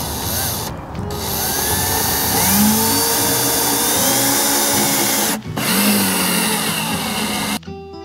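Cordless drill driving a 2-inch screw into a wooden hive box, its motor whine rising and falling with the trigger and stopping briefly twice. It cuts off near the end as guitar music comes in.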